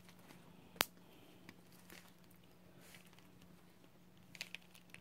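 A cat rubbing against a cardboard box flap in a quiet room: one sharp tap a little under a second in and a few faint ticks near the end, over a faint steady hum.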